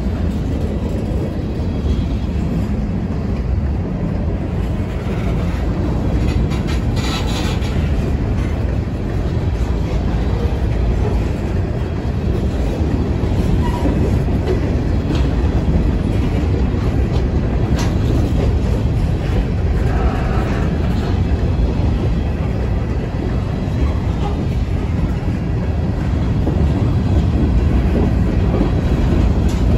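Freight cars, a centerbeam flatcar and covered hoppers, rolling past close by: a steady rumble of steel wheels on the rails.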